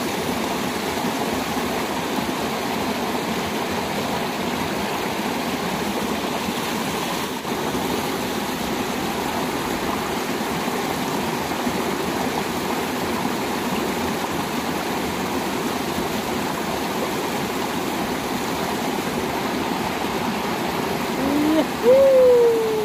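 Flowing water in a small muddy stream, rushing steadily. Near the end there is a brief, louder pitched call that rises and then falls.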